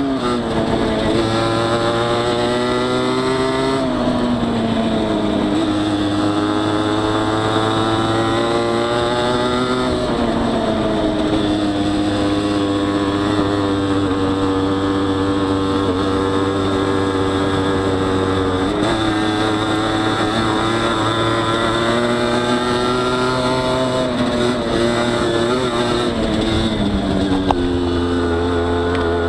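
Honda CRM50 two-stroke single, bored out to 63 cc, running under way on the bike being ridden. Its revs climb and drop back several times.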